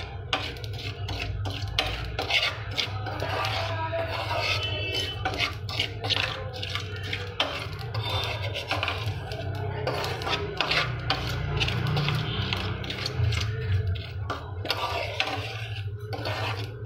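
A steel spoon stirring and scraping foxtail millet through hot rock salt in a steel pan: a steady gritty scraping with many short clicks. The millet is just starting to pop.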